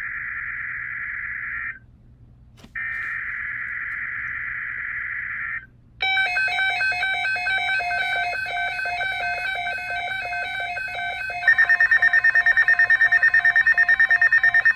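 Emergency Alert System SAME header: two harsh digital data bursts, the first already under way, followed by electronic alert tones. A shifting pattern of beeps leads into a fast pulsing beep at about seven a second from about halfway through.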